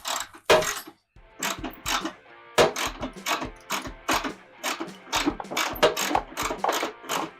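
A ratchet wrench clicks briefly, then after a short break background music with a steady beat takes over.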